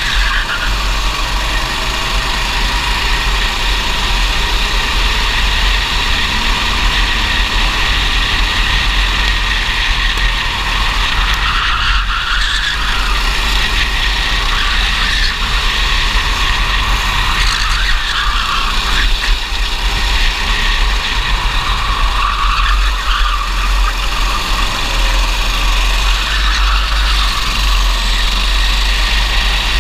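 Racing kart engine running hard, heard from an onboard camera on the kart, its pitch rising and falling every few seconds as the driver goes on and off the throttle through the corners.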